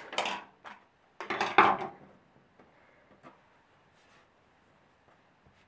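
Metal scissors set down on a wooden tabletop: a sudden clatter about a second in, then faint soft handling of felt pieces.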